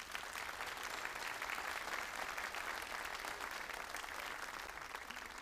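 Theatre audience applauding, a steady clapping that eases off a little near the end.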